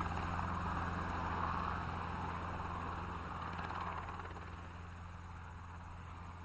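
Helicopter running, a steady low drone with rapid rotor chop, growing quieter through the last few seconds.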